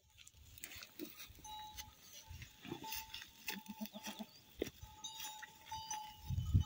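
A flock of sheep and goats bleating as it grazes and moves, with many small clicks and clinks throughout. One bleat about three and a half seconds in has a quick quaver.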